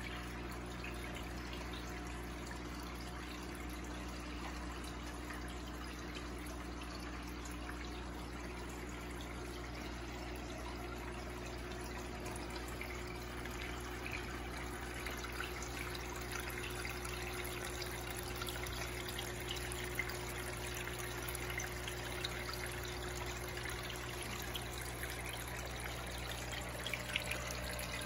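Aquarium water trickling and splashing steadily over a low, steady hum, with more small splashes and drips in the second half.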